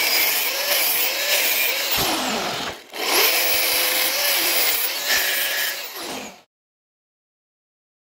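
Angle grinder cutting through a steel exhaust pipe: a loud hiss of the disc on metal over a motor whine that wavers under load. It pauses briefly a little under three seconds in, runs again, and cuts off suddenly about six seconds in.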